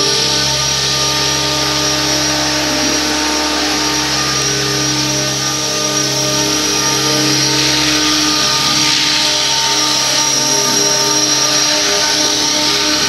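Radio-controlled T-Rex 600 model helicopter flying: a steady high whine from its drive over the rotor noise.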